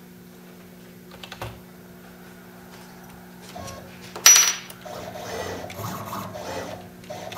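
Steady hum from the idle CNC lathe with a few light clicks, then a sharp metallic clink with a short ring about four seconds in. Uneven mechanical buzzing follows it.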